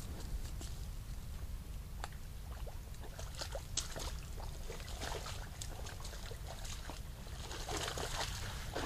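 Water splashing and sloshing in a shallow forest pond or wallow: scattered splashes that thicken about eight seconds in, over a steady low hum.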